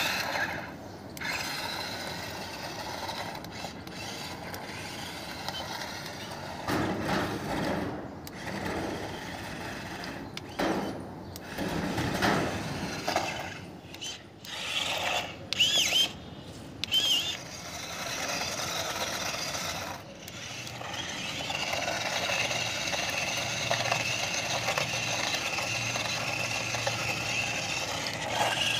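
Small electric motors and plastic gears of a toy 4x4 RC stunt car whirring as it drives, starting and stopping in spurts, then running steadily for the last several seconds.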